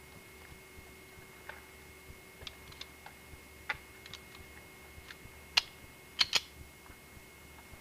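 Metallic clicks of a handgun being handled and readied: faint small clicks throughout, then three sharp clicks about five and a half to six and a half seconds in, the last two close together.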